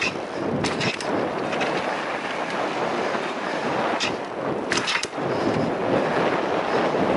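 Electric mountain bike rolling fast down a dirt trail: wind rushing over the microphone and tyres on the dirt, with several sharp clacks and rattles from the bike over bumps, a cluster of them about five seconds in.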